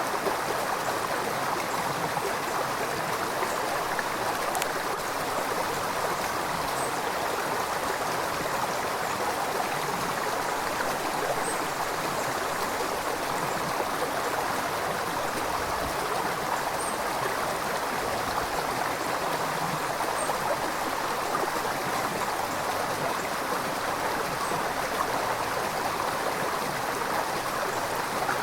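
River water flowing steadily: an even, continuous rush of moving water.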